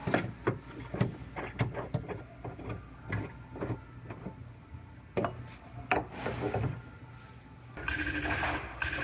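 Metal clanks and knocks of auto-body pulling equipment being handled and set up, at uneven intervals. From about eight seconds in, a rapid, steady mechanical rattle starts.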